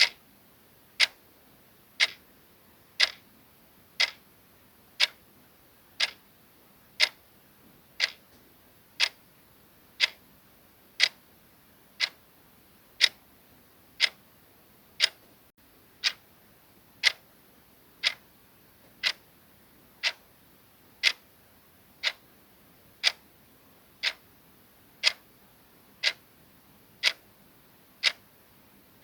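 Clock ticking sound effect: one sharp, even tick each second.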